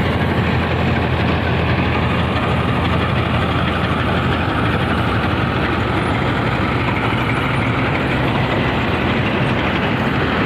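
Balkar tractor-mounted combine harvester running at a steady, loud pitch as it cuts standing rice.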